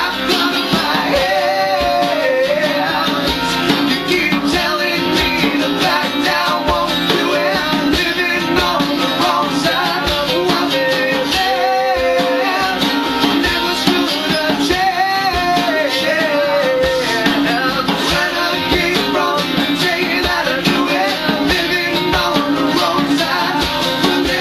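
Live acoustic rock song played on a strummed acoustic guitar and a hand drum beaten with the hands, keeping a steady rhythm.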